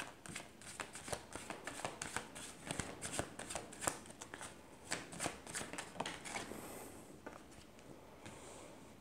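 A deck of oracle cards being shuffled by hand: a quick, uneven run of soft card slaps and flicks that thins out over the last couple of seconds.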